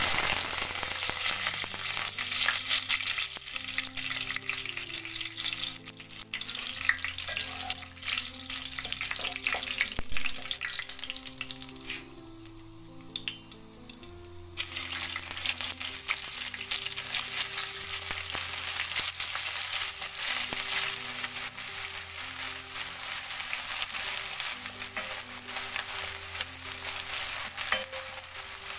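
Hot oil sizzling in a pot as green chillies fry with cumin seeds and whole spices. The sizzling dies down, then grated onion goes in about halfway through and sizzles loudly again, stirred with a wooden spatula near the end. Soft background music plays underneath.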